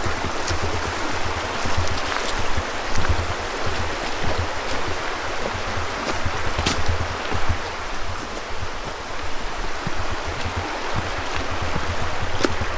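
A creek rushing steadily over rocks, with uneven low rumbling underneath.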